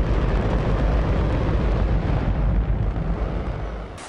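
Rocket engine test firing: a loud, steady roar with a heavy deep rumble, easing slightly before it cuts off sharply near the end.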